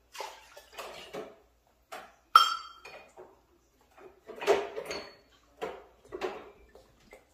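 Measuring cup clinking and scraping against a stainless steel pot as broth is scooped out, in a string of separate clatters, with one sharp ringing metal clink about two and a half seconds in.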